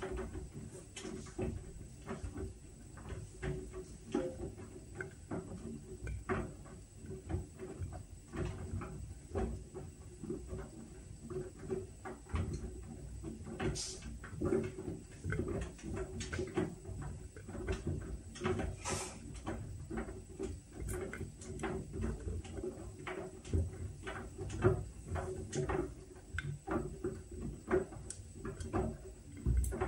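Whirlpool washing machine running its Steam Refresh cycle: a steady low hum with frequent, irregular clicks and soft knocks as the drum turns.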